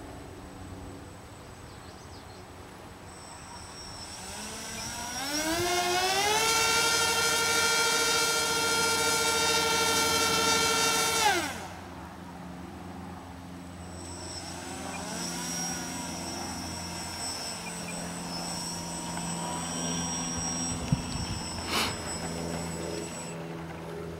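Twin brushless electric motors of a model Boeing 247 turning three-blade contra-rotating propellers, spun up to a high steady whine, held for about five seconds, then cut off sharply. After a short pause they run again more quietly at lower throttle, with a sharp click near the end.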